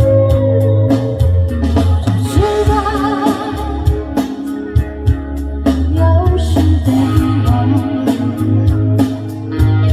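Live rock band playing: electric guitars, bass guitar and drum kit, with a woman singing over them.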